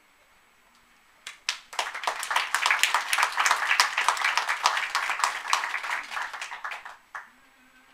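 Audience applauding: a few scattered claps about a second in build quickly into full applause, which dies away near the end.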